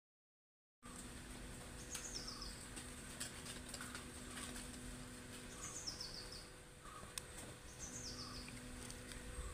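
After a moment of dead silence, faint outdoor background returns with a steady low hum. A bird's short, stepped, falling chirp repeats about three times, with a few faint clicks in between.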